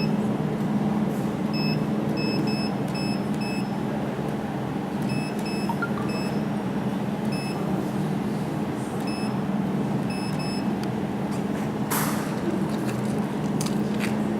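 Jewelry laser welding machine running with a steady hum, with clusters of short high beeps from about one and a half to eleven seconds in and a sharp click about twelve seconds in.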